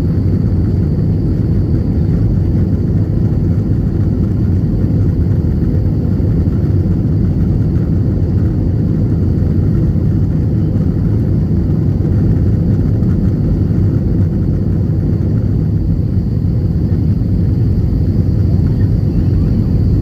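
Jet airliner cabin noise while climbing out after takeoff: a loud, steady low rumble of engines and rushing air, with a faint steady high whine above it.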